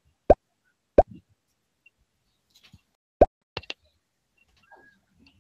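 Short, identical pops, each a quick upward-gliding 'bloop', three times: just after the start, about a second in and a little past three seconds, followed by two fainter clicks. Alert tones of a voice-chat room app as new chat messages and gifts arrive.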